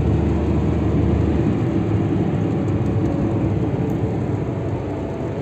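Steady road and engine noise inside a car cruising at highway speed: a low rumble of tyres on the road with engine hum, easing slightly near the end.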